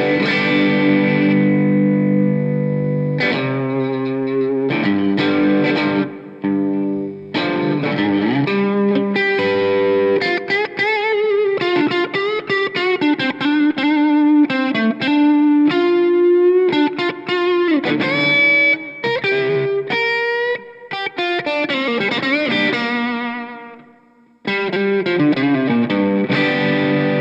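Squier Classic Vibe Telecaster Custom electric guitar played through a light overdrive: ringing chords first, then a quick single-note lead line with string bends, a brief gap near the end, and chords again.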